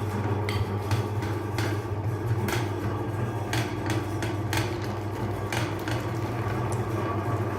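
A motor running with a steady low hum, with irregular sharp clicks and knocks over it about once or twice a second.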